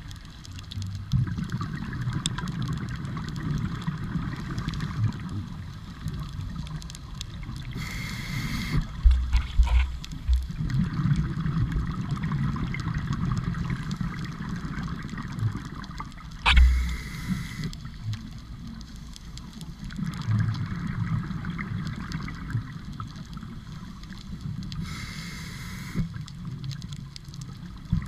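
Scuba diver breathing through a regulator underwater: a hiss of inhalation about every eight seconds, with exhaled bubbles gurgling in between. Two dull knocks come partway through.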